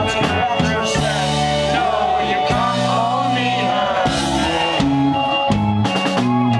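Live rock band playing a song: a man singing over acoustic guitar, with sustained bass notes and drums and cymbals, heard in the hall.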